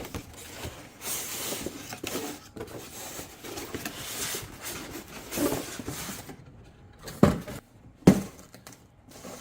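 Box packaging rustling and being handled as contents are unpacked, followed by two sharp knocks a little over a second apart near the end.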